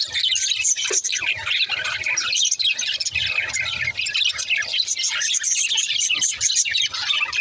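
Many budgerigars chattering and chirping at once, a dense, unbroken twitter of short high notes.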